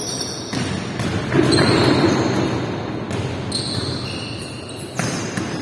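Basketball game on a wooden sports-hall floor: a few ball bounces and high-pitched sneaker squeaks over the general shuffle of players, echoing in the large hall.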